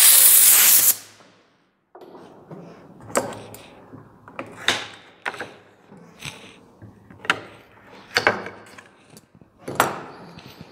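A hand carving tool making short cuts in a wooden bead moulding as the last small details are carved: about seven sharp scraping cuts, irregularly spaced. It opens with about a second of loud hissing noise, then a brief dead gap.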